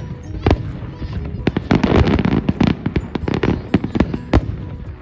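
Aerial fireworks shells bursting in a rapid volley of sharp bangs, densest and loudest about two seconds in.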